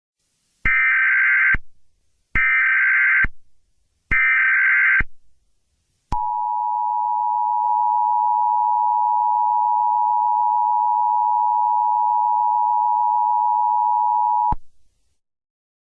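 Emergency Alert System tones: three bursts of SAME header data, each about a second long and evenly spaced, then the steady two-tone attention signal held for about eight seconds. This sequence signals that an emergency alert message is about to be broadcast.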